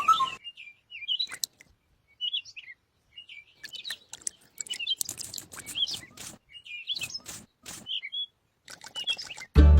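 Birds chirping in short, scattered high calls, with a few soft clicks or taps between them.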